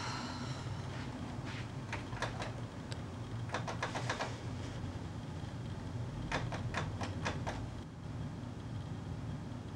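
Typing on a keyboard: three short runs of quick key clicks, over a steady low hum.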